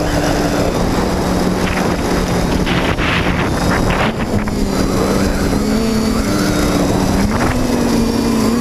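TBS Discovery Pro quadcopter's brushless motors and propellers whining as heard from the onboard GoPro, their pitch stepping up and down with throttle changes, with wind rushing over the microphone and a few brief gusts.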